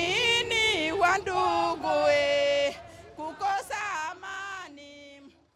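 Singing voices: a song with long held notes that glide between pitches, fading out over the second half.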